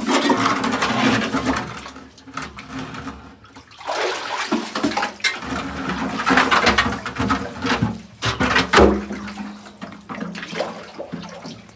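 Water splashing and sloshing in repeated surges as sand is dug and scooped out of the water at the bottom of a concrete-ringed well shaft, with a sharp splash about nine seconds in and a faint steady hum underneath.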